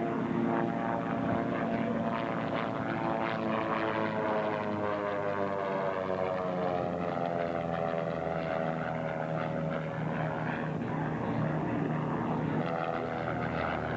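A Cessna Skymaster push-pull twin flies past, its two piston engines and propellers droning, one pulling at the nose and one pushing at the rear. The pitch falls steadily over the middle of the pass as the plane goes by, then levels out.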